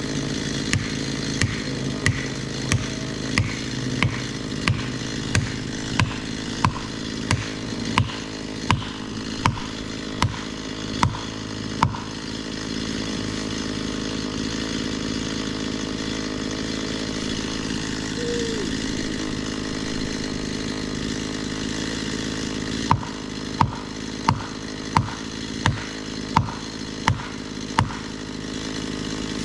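Chainsaw running steadily during tree felling. Over it comes an evenly spaced series of sharp knocks, about one and a half a second, which stops for about ten seconds and then starts again near the end.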